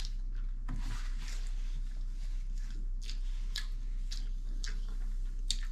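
Close-miked chewing of food: soft wet mouth clicks and smacks about every half second, over a low steady hum.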